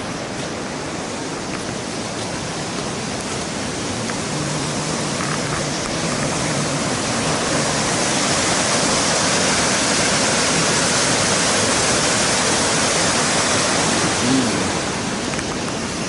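Sogi Falls, a broad river waterfall, rushing steadily; it grows louder about halfway through and eases off near the end.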